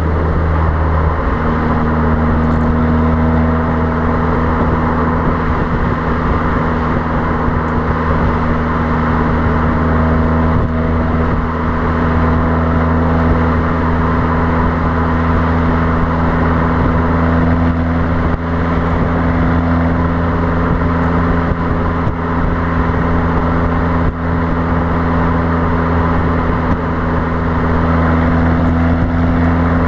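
Fiat Abarth 595's 1.4-litre turbocharged four-cylinder exhaust droning steadily at motorway cruise, its note creeping up slightly near the end. Heard from beside the rear number plate, with wind rushing over the microphone.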